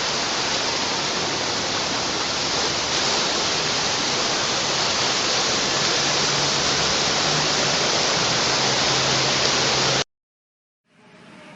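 Loud, steady rush of water from a flash flood in heavy rain. A faint low hum joins about six seconds in, and the sound cuts off abruptly near the end.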